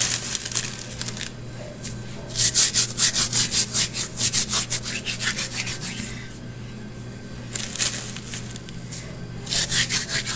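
Dried oregano rubbed between the fingers over a tray of seasoned pork: quick, scratchy rubbing strokes, several a second, in three spells with short pauses, crushing the leaves to release their flavour.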